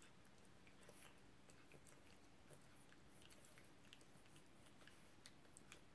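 Faint, irregular wet clicks of a cat licking a lickable salmon puree treat from a squeeze tube.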